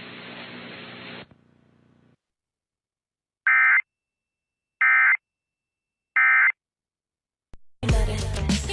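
Emergency Alert System end-of-message data bursts: three short, buzzy digital tone bursts about 1.3 seconds apart, the signal that closes an alert. Near the end, other broadcast audio cuts in abruptly.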